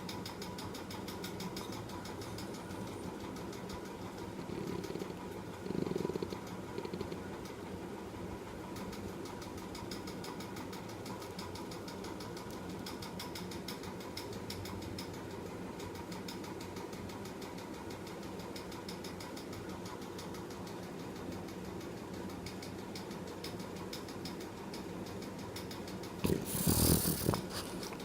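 French bulldog snoring in its sleep: a continuous fluttering rattle of breath, with a louder breath about six seconds in and a loud, sharper burst near the end.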